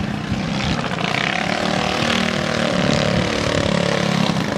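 Small go-kart engine buzzing, its pitch rising and falling as the kart speeds up and slows.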